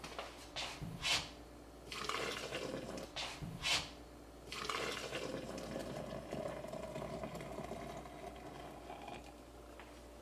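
Hot liquid being poured into a glass French press, with two sharp clinks in the first few seconds.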